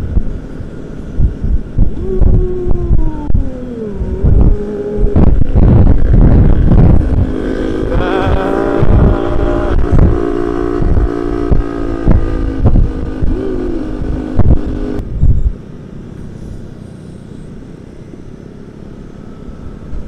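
Honda ADV 160 scooter's single-cylinder engine running under way, with wind buffeting the microphone. The engine's pitch falls a few seconds in and then holds steady. About three-quarters of the way through, the sound drops abruptly to a quieter, steady hum.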